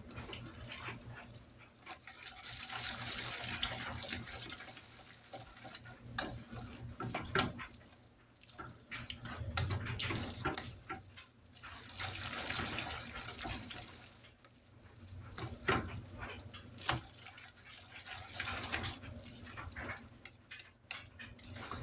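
Boxed macaroni being stirred together with milk and cheese powder in a pot: a wet, sloshing swish that swells and fades with the stirring, with the spoon knocking and clicking against the pot.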